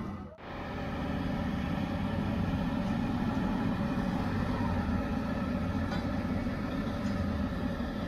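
Steady mechanical drone with a constant hum and a low rumble, after a brief dropout right at the start.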